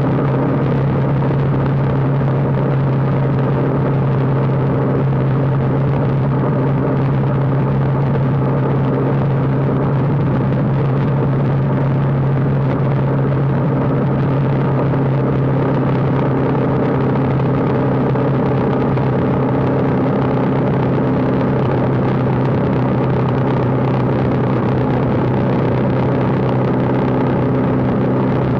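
Motorcycle engine running at a steady cruising speed, heard from the riding bike, with wind rushing over the microphone. The engine's hum stays at one pitch throughout.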